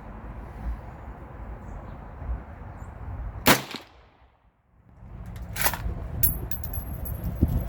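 A single AR-15 rifle shot, firing a home-cast .224 bullet, about three and a half seconds in. About two seconds later comes a sharper, quieter metallic clack and a few small clicks: the action being worked by hand, because the light cast loads do not cycle the rifle.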